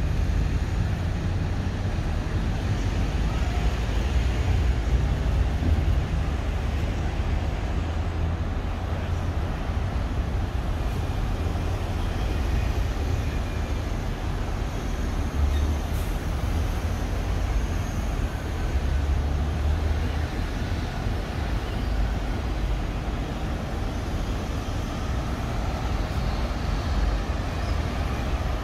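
Steady street traffic noise from buses and cars, with a constant heavy low rumble.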